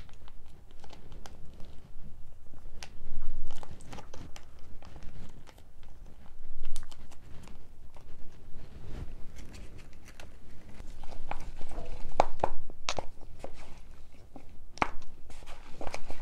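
Stomach and intestines gurgling while digesting a meal: irregular pops and clicks, low rumbles, and a cluster of short gurgles about twelve seconds in.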